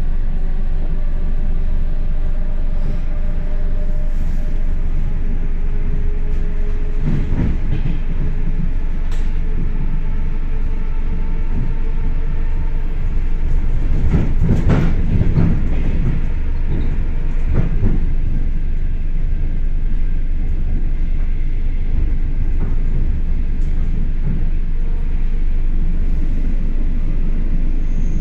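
ER2 electric multiple unit running along the track: a steady rumble with a faint whine, and groups of wheel clicks over rail joints, the strongest about 14 to 16 seconds in.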